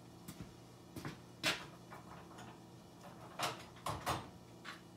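A few scattered light clicks and knocks of metal brake parts and tools being handled, the loudest about a second and a half in, over a faint steady low hum.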